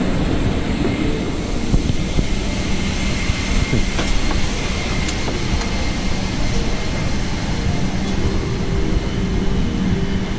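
Steady rushing hum of a Boeing 777-300ER's cabin air system while the aircraft is parked at the gate for boarding, with a faint steady high whistle in it.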